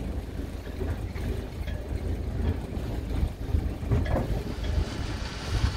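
Catalina 42 sailboat's inboard diesel engine idling, a low steady rumble while the boat is cast off from its slip.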